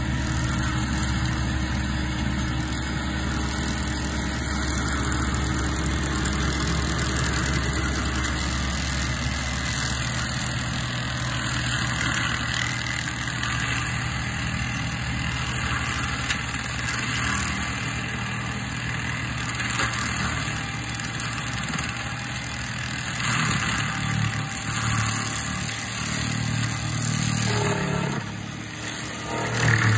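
Seppi RC 50 remote-controlled forestry mulcher's 50 hp diesel engine running steadily under load while its front hammer rotor shreds small conifers and brush. Near the end the engine note shifts briefly.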